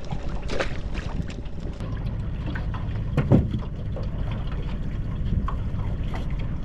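Knocks and rattles of a wire crab pot and its rope being hauled in and handled aboard a small aluminium boat, with one louder clunk about three seconds in, over a steady low rumble.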